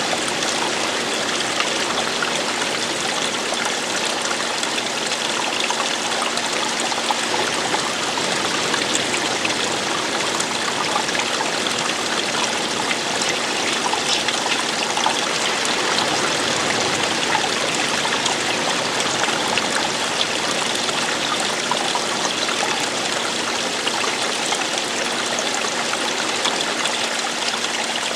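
Running water from a stream or small waterfall: a steady, even rush with fine splashing and trickling.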